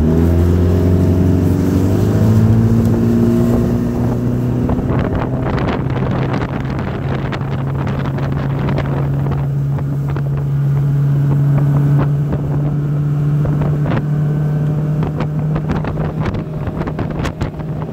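1989 Hurricane deck boat's engine running under way, rising in pitch over the first few seconds as it picks up speed, then holding steady. Wind buffets the microphone.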